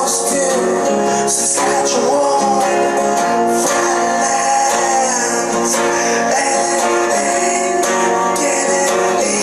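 Music: a song played on a strummed guitar.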